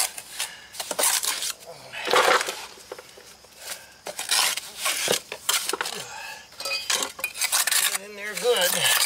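Steel trowel scraping and tapping on concrete in short, irregular strokes as fresh rapid-set mortar is pressed and smoothed into a chipped patio step edge.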